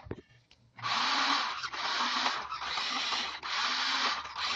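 Toy 4x4 RC rock crawler's electric drive motor and plastic gearboxes whirring in about five short bursts of throttle, with the car held off the ground so the wheels spin freely.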